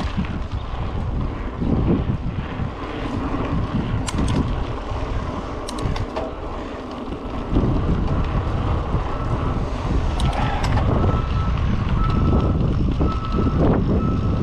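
Wind buffeting the microphone over the rumble and rattle of a Yeti SB5 mountain bike rolling over a dirt trail, with a few sharp clicks.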